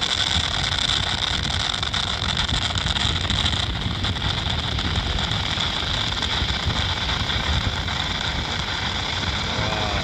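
Steady rushing noise of wind on the microphone and surf on the beach, with a constant hiss and a low rumble.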